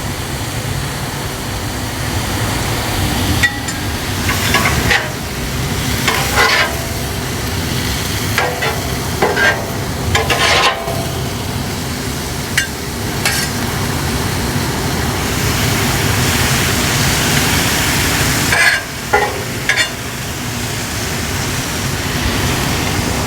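Steak and onions sizzling steadily on a hot flat-top griddle, with a metal spatula scraping and clattering on the steel plate in short strokes every second or so, in clusters over the first two thirds.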